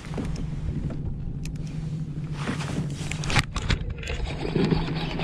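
Handling noises aboard a plastic fishing kayak: a few sharp knocks and clicks about three seconds in, over a steady low hum.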